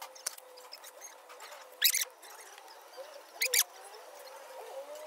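A metal filler spreader scraping over body filler on a car's front bumper corner. It gives two short, high squeaks, about two seconds in and again a second and a half later.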